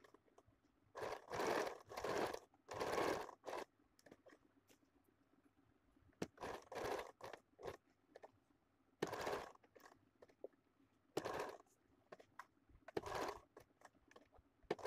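Domestic electric sewing machine stitching in short runs of half a second to a second, stopping and starting about eight times with pauses between, as the fabric is turned along a curved seam.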